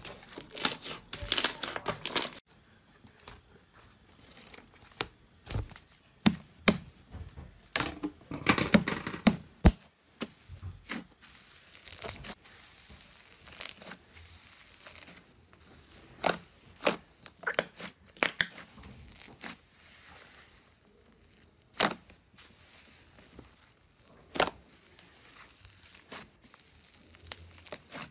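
Hand-worked slime crackling and popping: a dense run of crackles for the first two seconds as red slime is squeezed, then a large slab of pink slime pressed flat by hand, giving scattered sharp pops and short crackles at irregular moments.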